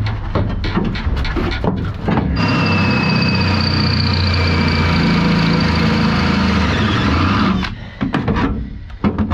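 A run of sharp knocks and metal clatter, then a cordless drill runs steadily for about five seconds, boring out a spot weld in the sheet-steel cargo floor. The drill stops abruptly near the end and a few more knocks follow.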